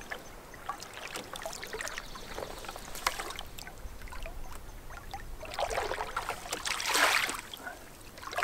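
Wooden canoe paddle working in calm water: soft trickling and dripping, with two swishing strokes a little past halfway, the second louder. A single light knock about three seconds in.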